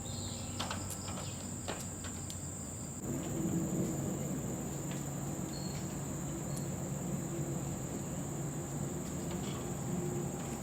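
Steady, high-pitched chorus of tropical forest insects, a continuous shrill drone. About three seconds in, a low hum joins underneath.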